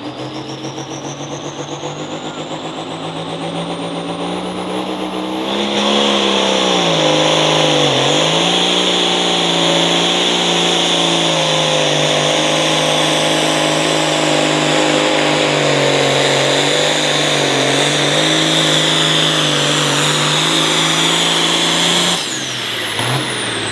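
Turbocharged pulling tractor engine making a pull. A high whine climbs as it builds boost, and about five seconds in it goes to full throttle and runs hard under the sled's load, its pitch sagging briefly a few times. Near the end it cuts off abruptly and the whine falls away.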